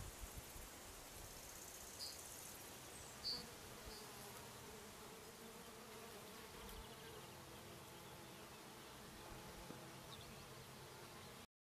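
Faint outdoor ambience with a flying insect buzzing, a low steady hum, and a few short high chirps in the first four seconds; the sound cuts off abruptly near the end.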